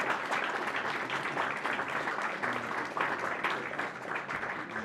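An audience applauding: a dense, steady patter of many hands clapping.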